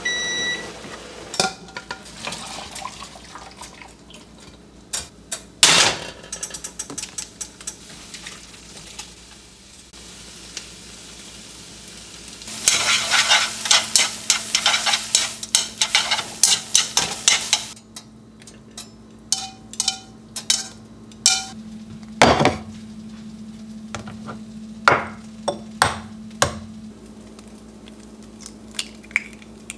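Scattered knife and utensil taps on a wooden cutting board come first. About halfway through, instant noodles sizzle in a nonstick wok for about five seconds while chopsticks stir and clack against the pan. A steady low hum comes in with the frying and continues, with more sharp taps and knocks near the end.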